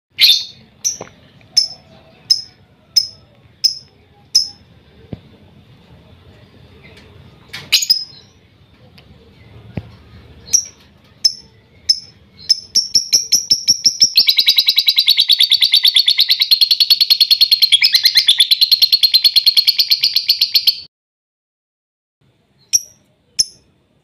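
Lovebird calling: sharp single chirps at first, then chirps that speed up about halfway through into a long, fast chattering trill (the 'ngekek') lasting about seven seconds, which cuts off suddenly. A few more single chirps come near the end.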